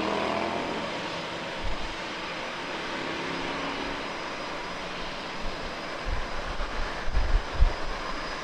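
Jet airliner engines running at an airport: a steady even rush, with irregular low thumps in the last couple of seconds.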